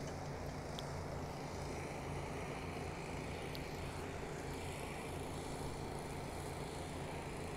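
Steady low drone of running engines at an outdoor work site, with an even background hiss and a couple of faint ticks.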